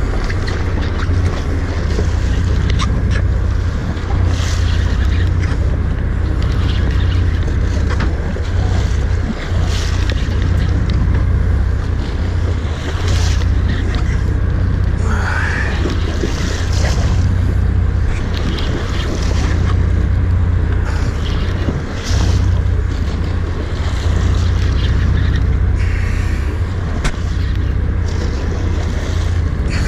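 Wind rumbling on the microphone over the sea washing against the boat's hull, with a hissing splash every second or two. A brief rising whistle about halfway through.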